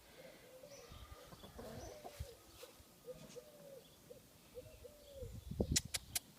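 Chickens clucking softly, a string of short, low calls. A few sharp clicks near the end.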